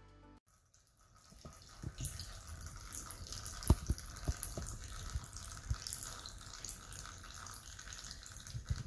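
Used engine oil draining from the Yamaha Kodiak 450 engine into a plastic tub of old oil: a faint, thin trickle with irregular drips splashing into the pooled oil, starting about a second and a half in.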